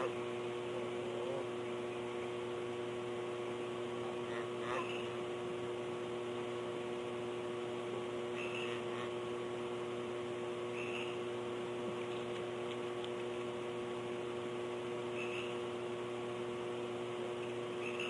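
Steady electrical hum with hiss, made of several constant tones, with a few faint short high sounds scattered through it.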